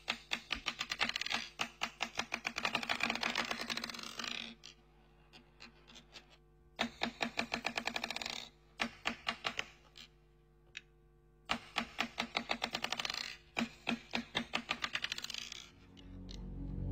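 Rapid, evenly spaced mechanical clicking in several runs of a few seconds each, with short quiet gaps between them, played as a sound effect in a radio programme. Music comes in near the end.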